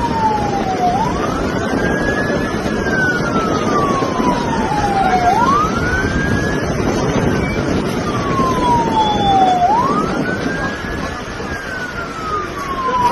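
Emergency vehicle siren wailing: each cycle rises quickly, then falls slowly, repeating about three times, over a loud steady rushing noise.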